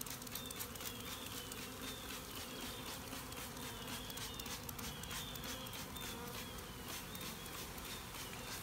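Honeybee swarm buzzing steadily in an open plastic tote, with short hisses from a trigger spray bottle misting the bees with sugar water.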